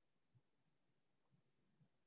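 Near silence, with three very faint soft taps.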